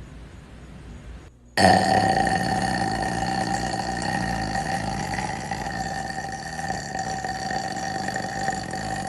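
A woman's very long, drawn-out burp. It starts suddenly about a second and a half in and is held at a steady pitch for about eight seconds.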